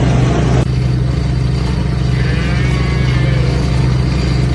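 Vehicle engine running steadily with a deep hum, with a brief break a little over half a second in.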